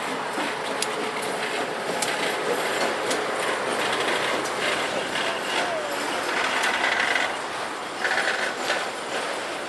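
CSX freight train of autorack cars rolling past, wheels clicking and clattering over the rail joints, with short high wheel squeals about six and a half and eight seconds in.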